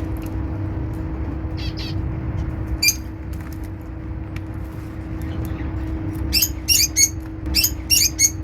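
African lovebirds calling with shrill chirps: a single call about three seconds in, then a quick run of about six sharp calls near the end. A steady low hum and rumble lie underneath.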